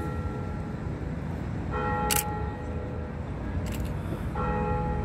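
Low rumble of a Düwag MGT6D low-floor tram approaching along the track, with a bell ringing twice, about two and a half seconds apart, and a sharp click between the rings.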